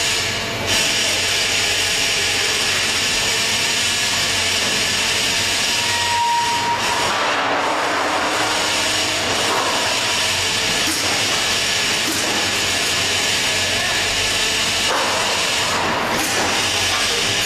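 Steady hissing machine noise from a CNC punching line for lorry chassis beams running, with no distinct punch strokes standing out. A brief high tone sounds about six seconds in.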